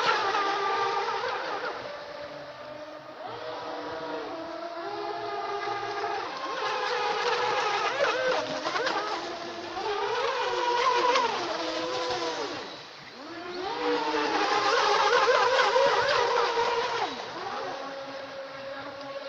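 Whine of brushless electric motors on RC speedboats running flat out. The pitch rises and falls with throttle, in overlapping tones, and the sound swells and fades as the boats pass, with a brief lull about 13 seconds in.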